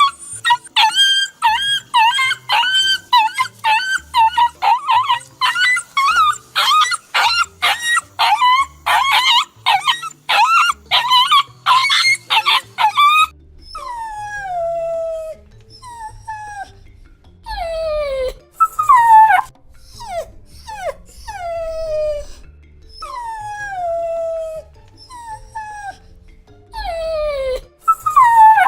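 A dog whining and crying. First comes a quick run of short, high whimpers, then, about halfway through, longer whines that each slide down in pitch, one every second or two.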